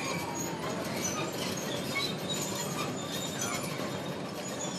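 Crawler bulldozer running its tracks over motorcycles and a car, crushing them: metal crunching with many short high squeals over the dozer's steady running noise.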